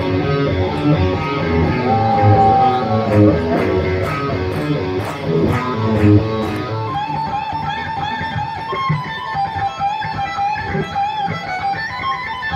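Rock music led by an electric guitar played on stage. About seven seconds in it cuts abruptly to a different stretch of music with a long held lead guitar line.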